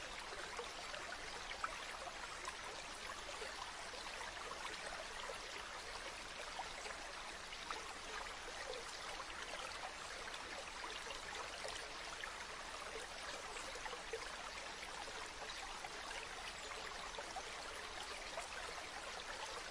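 A stream running steadily: a continuous rush of water with many small splashes and drips.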